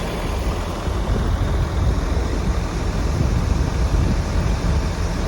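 Tractor engine running steadily at high throttle, driving the grain cart's auger as it unloads corn into a truck.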